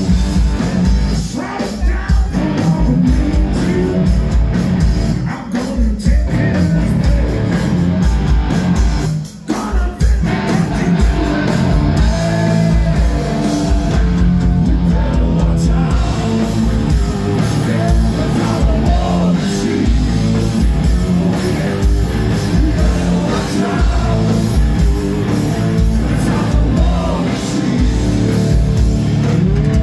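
Live hard rock band playing: distorted electric guitars, bass, drums and singing, loud and unbroken apart from a brief break about nine seconds in.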